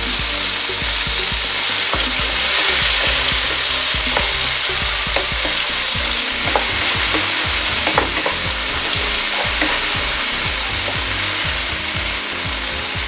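Halved cherry tomatoes sizzling in hot oil in a nonstick frying pan, a steady hiss that eases a little near the end. Scattered light taps and scrapes come from a wooden spatula stirring them.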